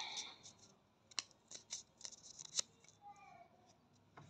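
Sharp crackling clicks, densest in the first half, from a ready-to-use wax strip being handled and peeled apart.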